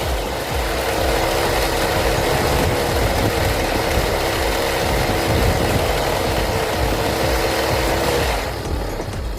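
Small brush-cutter engine running steadily at speed, driving a homemade winch through an angle-grinder gearbox; its note drops and quietens about a second before the end, as if the throttle is let off.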